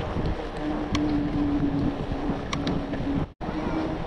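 Wind buffeting the microphone of a moving bicycle rider, a dense low rumble with a steady hum running through most of it and a couple of sharp clicks. The sound cuts out for an instant near the end.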